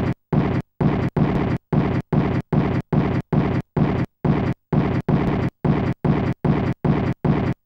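Artwork soundtrack of loud, rumbling noise pulses chopped into a steady rhythm, about three a second, each cutting off sharply into silence.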